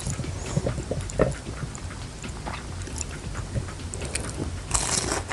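Close-up mukbang eating sounds: a person biting and chewing battered fried onion, with a louder bite near the end.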